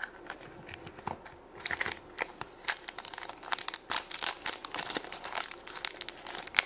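A thin clear plastic wrapper crinkling and tearing as it is pulled open by hand, a dense crackle from about a second and a half in. A few sharp clicks before it come from the plastic egg capsule being opened.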